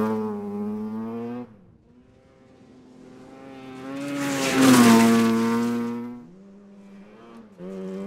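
Mazda RX2 rally car's rotary engine held at high revs as the car passes on a gravel road, in short pieces cut together. The loudest pass, about halfway through, brings a hiss of gravel and tyre noise and a slight drop in engine pitch as the car goes by, then the sound fades away.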